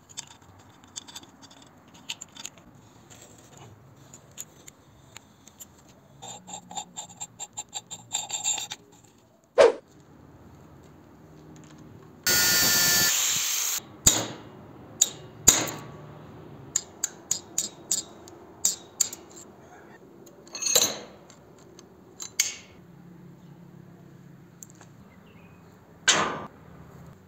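Angle grinder with a cutting disc running briefly through a motorcycle chain link held in a vise, one loud burst of under two seconds about twelve seconds in. Around it come many sharp clicks and knocks, including a quick run of clicks a few seconds before and one hard knock just before the cut.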